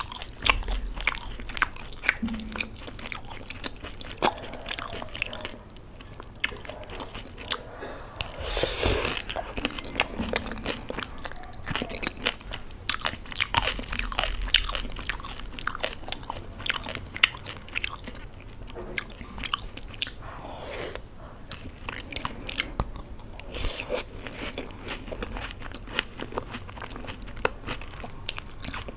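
Close-miked chewing and crunching of Indian chaat, a raj kachori's crisp fried shell with yogurt and chutneys, with many small crackles and wet mouth sounds and a louder crunch about nine seconds in.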